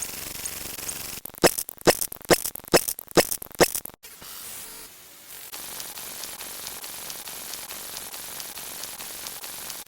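Steady static-like hiss, broken by a run of about six sharp clicks roughly half a second apart; after a sudden cut, the hiss goes on with faint, regular ticks.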